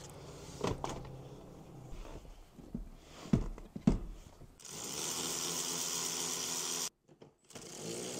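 A car seat being knocked and set into place in the car's doorway, a few separate thumps and knocks, then a small electric motor runs steadily with a whining hiss, cutting out briefly about seven seconds in and starting again.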